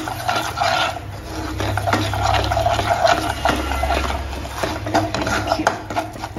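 Spatula scraping and stirring a thick paste of gram flour, ghee and ground spices against the bottom of a nonstick kadai, in repeated strokes.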